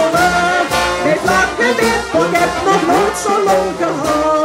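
Carnival brass band playing live: a brass melody over sousaphone, with a steady bass drum beat of about two strokes a second and a snare drum.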